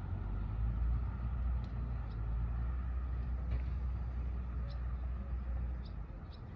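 A steady low rumble that falls away near the end, with a few faint, short high chirps over it.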